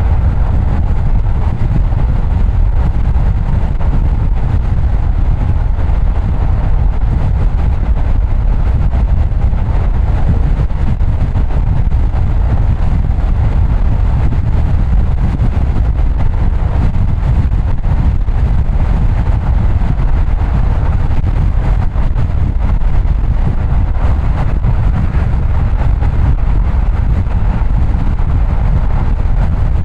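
Steady road noise of a car driving, mostly low-pitched and even throughout, with no distinct events.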